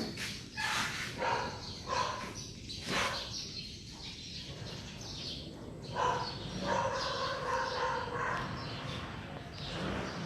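Pet dogs making soft whines and yips while playing, amid short scuffling and clicking sounds; a wavering whine runs for a couple of seconds past the middle.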